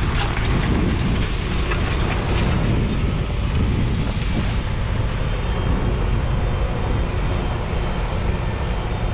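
A McCormick X7.624 tractor's 6.7-litre six-cylinder diesel running steadily under load while pulling a Pöttinger five-furrow reversible plough through the soil.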